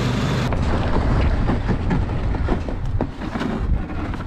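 Snowdog motorized dog sled engine running, with a steady low rumble, plus scattered knocks and rattles.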